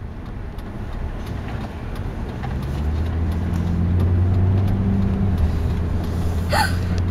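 Deep, steady engine rumble heard from inside a car, growing louder about three seconds in and then holding.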